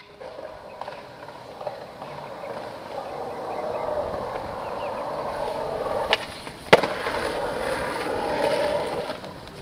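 Skateboard wheels rolling on concrete, the rolling building over the first few seconds. A little past halfway there is a light click, then a sharp, loud crack of the board, the loudest moment.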